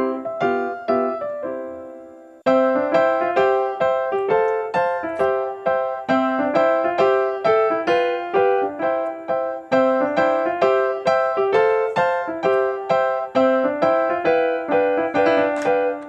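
Background music: a light keyboard tune of evenly struck, quickly fading notes. It fades away about two seconds in and starts up again abruptly half a second later.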